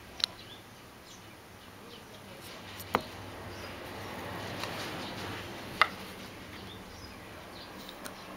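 A few short, sharp clicks or taps, roughly three seconds apart, over quiet room noise.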